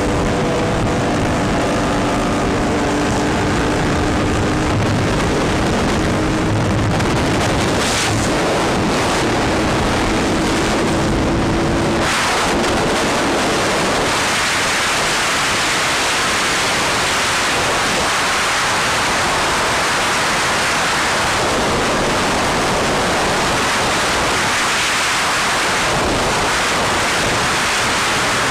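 Steady rush of wind buffeting the microphone of a camera riding on a motorcycle at highway speed. A faint steady hum runs under it for about the first twelve seconds, then the wind rush carries on alone and a little brighter.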